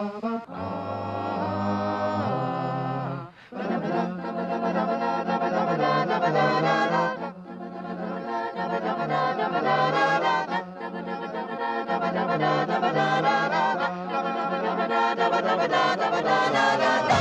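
Background music with singing voices, breaking off briefly about three seconds in before going on.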